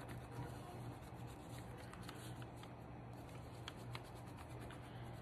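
Faint colouring strokes: a yellow drawing stick rubbed back and forth over crumpled paper, with a few small ticks, over a steady low hum.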